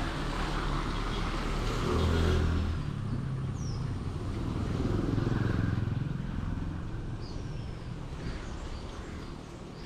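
Road traffic: motor vehicles passing close by, the loudest passes about two seconds in and about five seconds in, over a steady low rumble.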